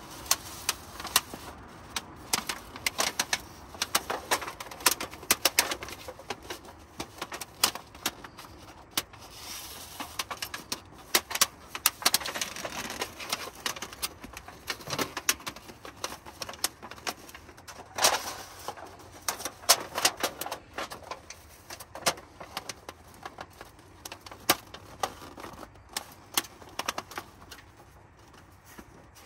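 Irregular clicks, taps and clinks of a metal stovepipe being handled and fitted together, then seated on a titanium wood stove, with light scraping between the knocks. The loudest knocks come in the middle.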